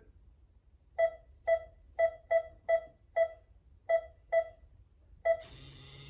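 Keypad of a eufy Security Smart Lock Touch beeping as a passcode is tapped in: nine short, identical beeps at an uneven pace, one per key press.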